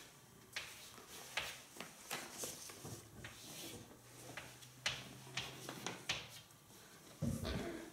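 Chalk writing on a chalkboard: a series of short, irregular taps and scratchy strokes as the letters are drawn.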